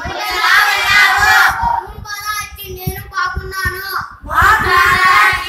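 A boy reciting aloud in Odia, in phrases separated by short pauses.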